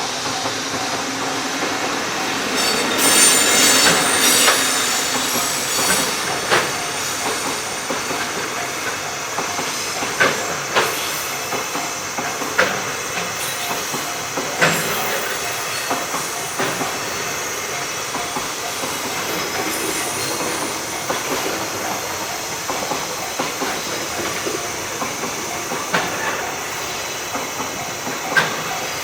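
A freight train hauled by an EF65 electric locomotive rolling past: a steady rumble of the wagons with wheel clacks over the rail joints every second or two, and the loudest stretch, with high wheel squeal, about three seconds in.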